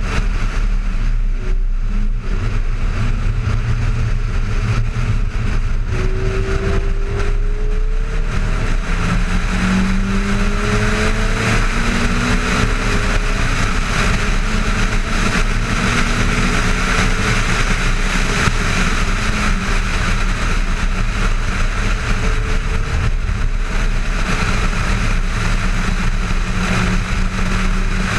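Ferrari F430's V8 at speed on a track, heard under heavy wind rush on a camera mounted outside on the front wing. The engine note rises in pitch several times between about six and twelve seconds in as the car accelerates.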